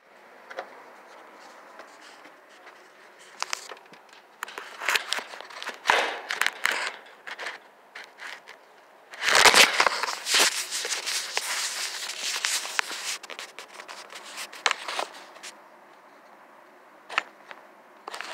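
Handling noise from a phone being moved and rubbed: scattered clicks and crackles, with a dense burst of scraping and rustling from about nine to thirteen seconds in.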